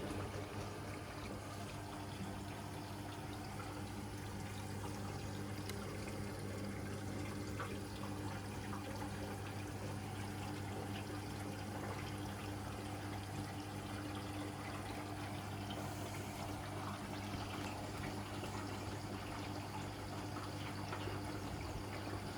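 Hoover Electra 535 Dual Spin washing machine filling with water for its softener rinse: water running steadily into the tub with a steady low hum.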